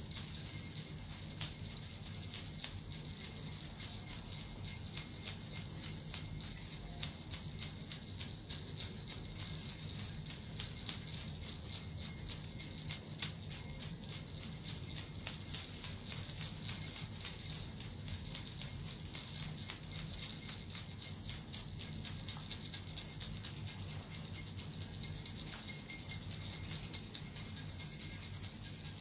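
Small jingling bells (suzu) shaken steadily without a break, a continuous bright shimmer of tiny strikes over a ringing tone.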